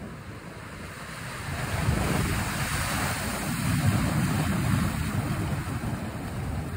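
Sea waves breaking and washing over low rock ledges and tide pools, swelling louder about two seconds in, with wind rumbling on the microphone.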